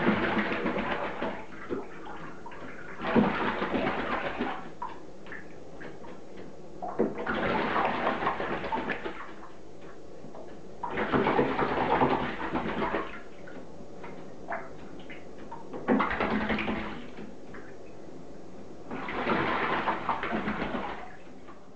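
A crow bathing in shallow bathtub water, beating its wings to splash. It comes in six bouts of a second or two each, a few seconds apart.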